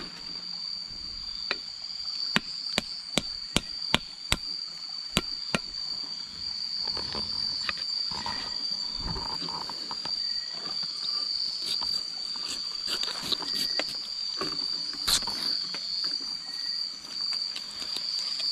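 Steady high-pitched trilling of a cricket chorus. In the first few seconds it is broken by a run of about nine sharp knocks, roughly two a second, louder than the insects.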